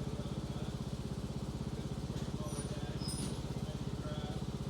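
Riding lawnmower engine running steadily with an even, rapid pulse.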